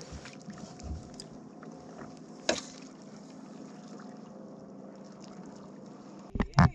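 A boat's motor running steadily, with one sharp knock about two and a half seconds in and two loud thumps near the end.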